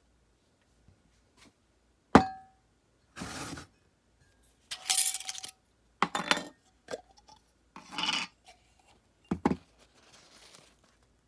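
Small metal lighter parts and tools being handled: one sharp metallic click with a brief ring about two seconds in, then a series of short scraping and rubbing strokes.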